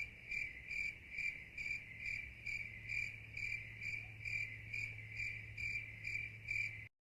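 Cricket chirping in a steady rhythm, about two and a half chirps a second, over a faint low steady hum; it cuts off abruptly near the end.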